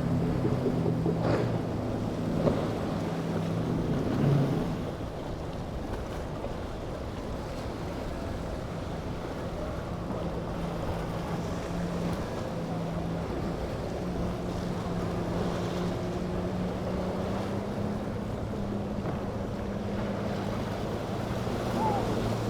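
Boat engines running steadily as boats pass through the inlet, a low drone over the wash of water and wind on the microphone. The engines are louder for the first few seconds, then settle lower, and one engine's pitch rises slightly later on.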